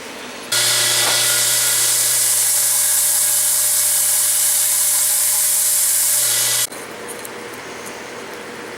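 Electric power tool running on wood for about six seconds, a steady hum under a loud hiss, starting and stopping abruptly.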